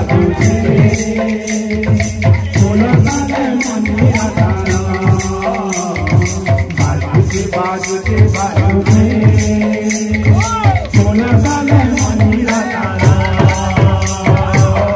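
Kirtan party music: double-headed barrel drums beaten in a fast, driving rhythm, their low strokes bending in pitch, with brass hand cymbals clashing on a steady beat and voices singing along.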